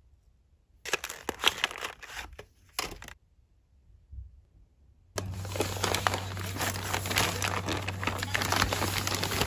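Brown paper mailer bag crinkling and tearing as it is ripped open by hand, starting about five seconds in over a low steady hum. Before it come a few short bursts of crinkling.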